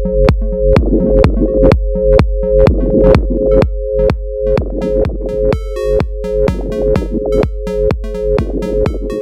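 Electronic dance track: a steady drum-machine beat over a deep held bass, with a repeating two-note synth figure.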